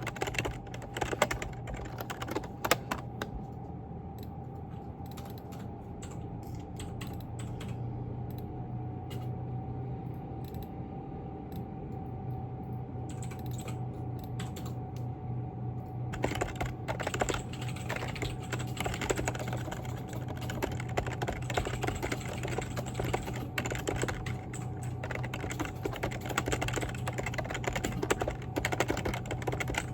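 Typing on a computer keyboard: a fast, continuous run of key clicks over a steady low hum, growing busier about halfway through.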